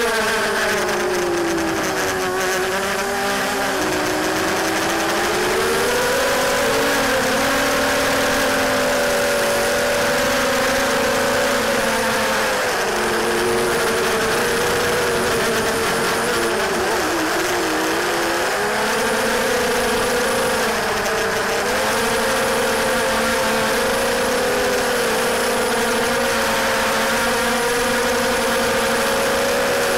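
DYS 1806 2300kv brushless motors and Gemfan 5040 propellers of a 250-class FPV quadcopter whining in flight, picked up by the onboard camera and heavily distorted. The pitch falls and climbs again several times as the throttle changes.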